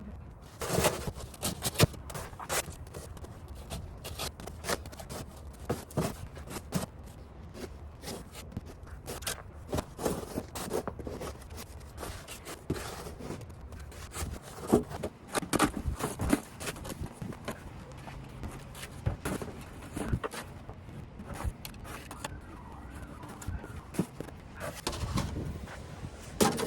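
Irregular crunches and scrapes in snow, short sharp sounds coming unevenly, with a few louder clusters partway through.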